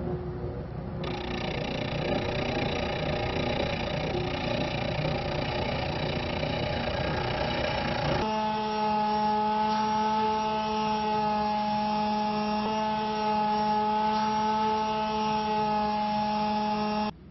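Electric woodworking power tool running. For about eight seconds it gives a rough, noisy grinding sound, then changes abruptly to a steady, even-pitched motor hum that cuts off suddenly near the end.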